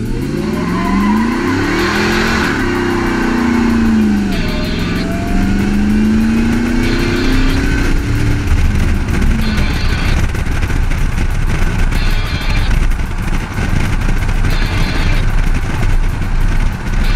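Ford SVT Lightning pickup's V8 accelerating hard: the revs climb, drop at a gear change about two seconds in, and climb again, then after about ten seconds it settles into steady cruising under road and wind rumble. Music with a regular beat plays over it.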